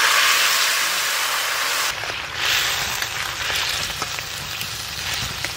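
Boiled potatoes and drumsticks, with their cooking broth, poured into hot tempering oil in a karahi, setting off a loud, steady sizzling hiss. The sizzle drops a little about two seconds in and carries on as the curry is stirred.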